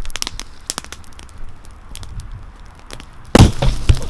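A bonfire crackling, with scattered sharp pops and snaps. About three and a half seconds in comes a sudden, very loud bang.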